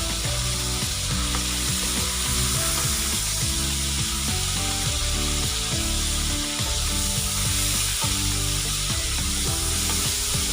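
Food sizzling steadily as it fries in a pan, with background music playing over it.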